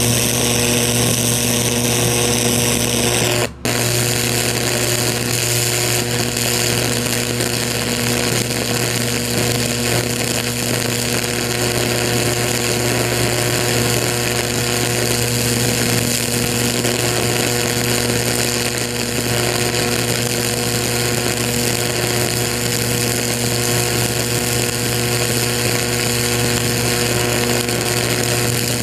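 High-voltage electric arc from a metal probe burning into a pumpkin: a steady, loud electrical buzz, cut off for an instant about three and a half seconds in, then going on.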